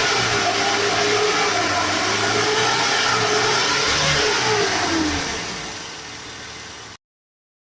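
Mitsubishi Colt T120's engine running and being revved, its pitch rising and falling. About five seconds in the revs drop away and the sound fades, then cuts off abruptly near the end.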